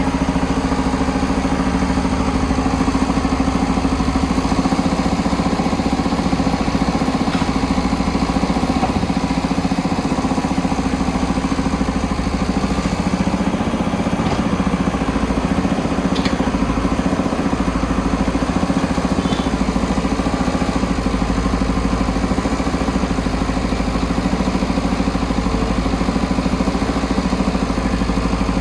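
JCB backhoe loader's diesel engine running steadily at an even speed.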